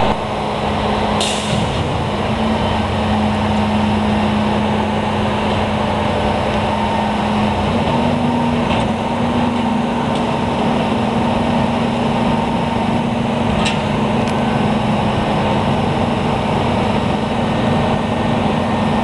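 Diesel engine of a 1996 WhiteGMC WG63 rear-loading garbage truck running steadily, its hum stepping up slightly in pitch twice. A short air hiss comes about a second in, and a couple of sharp clicks come later.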